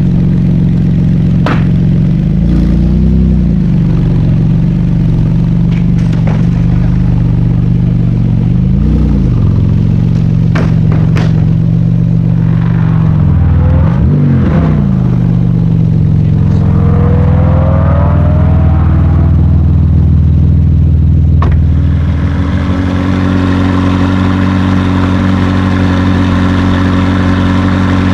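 A high-performance car engine idling loud and steady, blipped three times with short rises and falls in revs. Partway through, a fainter engine note climbs as a car pulls away. About three-quarters of the way in, the idle gives way to a different engine idling.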